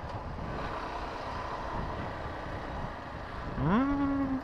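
Motorcycle riding slowly through town traffic: steady engine, tyre and wind noise. Near the end a louder tone rises in pitch and then holds for under a second.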